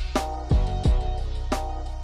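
Background music with a steady drum beat and a deep bass.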